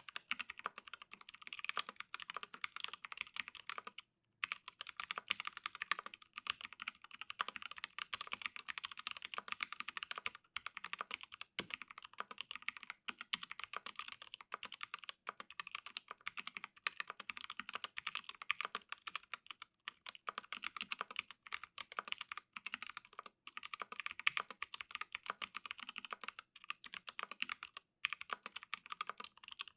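Fast, continuous typing on a mechanical Alice-layout keyboard with an acrylic case and acrylic half plate, lubed T1 switches and PBT keycaps: a steady stream of key clacks, with a brief pause about four seconds in.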